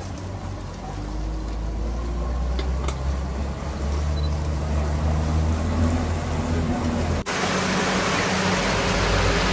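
Tour boat's motor running, a steady low hum rising a little in pitch and getting louder as the boat picks up speed. About seven seconds in, the sound changes abruptly to loud rushing wind and water noise over the motor.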